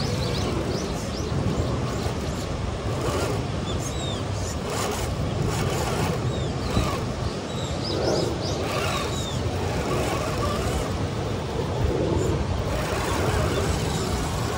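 Axial SCX10 III radio-controlled rock crawler, with a brushed 550-size motor, crawling slowly up bare rock, its motor and drivetrain running under a steady rumble of wind on the microphone. Small birds chirp now and then.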